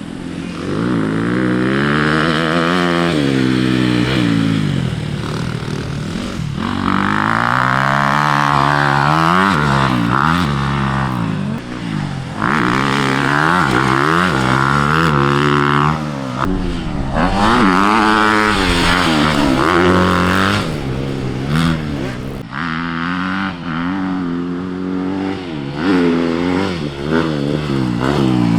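Honda CRF250 dirt bike's single-cylinder four-stroke engine revving hard. The pitch climbs and drops back again and again, every few seconds.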